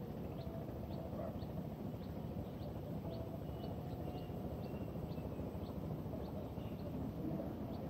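Outdoor ambience at a pond: a steady low rumble of background noise, with a short, high, falling chirp repeating about twice a second.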